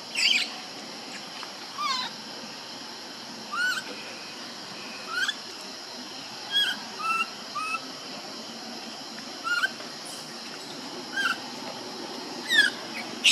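Baby macaque crying: short, high, chirping distress calls, each a quick sweep in pitch, about one every second or two, from an infant left alone by its mother.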